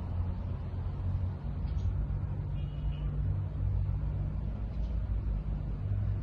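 Car engine running at idle: a steady low hum.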